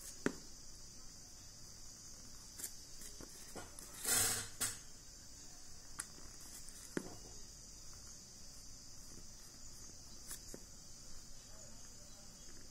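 Faint sounds of a pen drawing a curve by hand on paper, with a short rustle of paper handling about four seconds in and a few light taps, over a steady high hiss.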